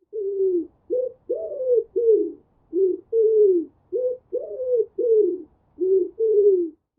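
Pigeon cooing: about eleven short, low coos in quick succession, most sliding down in pitch.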